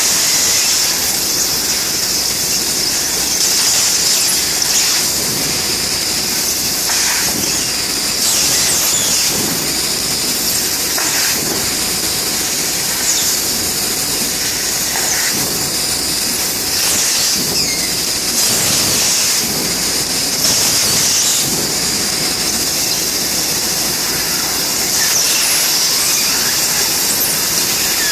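Bystronic CNC laser cutting machine running: a steady, loud hiss with short high squeals coming and going over it.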